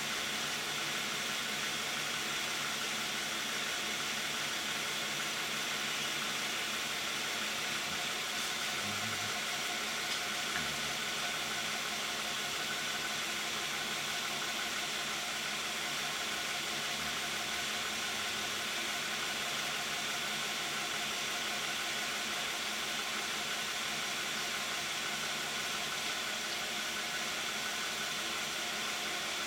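2010 Toyota Camry's 3.5-litre V6 idling steadily, heard through the closed hood, with an even hiss over it. The idle is fairly quiet for 93,000 miles on 5W-30 synthetic oil.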